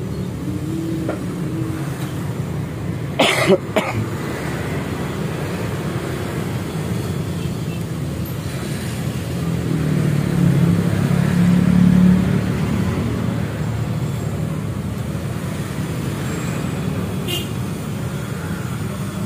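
Steady rumble of road traffic, with a vehicle passing and swelling louder about ten to twelve seconds in. A brief clatter about three seconds in and a small click near the end come from hands-on work fitting the motorcycle's fairing panels.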